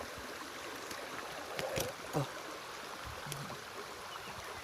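Shallow stream water flowing steadily, with a few brief clicks and knocks about two seconds in.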